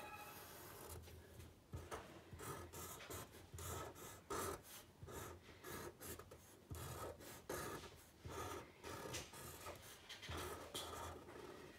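Black marker pen drawing on craft paper: a faint run of short, scratchy strokes as the outline and segments of a lemon are drawn.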